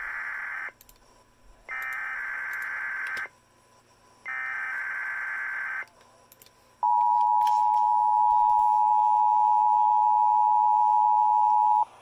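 Emergency Alert System SAME header: three data bursts of about a second and a half each, followed by the EAS two-tone attention signal (853 and 960 Hz), a steady dual tone lasting about five seconds that cuts off sharply. Together they mark the start of an EAS Required Weekly Test.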